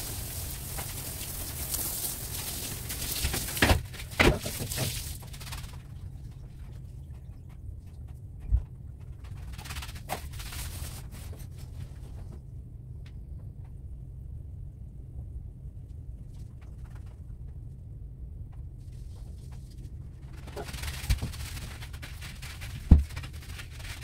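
Water spraying from a garden hose onto a sand floor bed: a steady hiss that stops about six seconds in, with a couple of knocks just before it ends. Then a quiet stretch with a low hum and a few clicks, and near the end a hiss returns with one sharp knock, the loudest sound.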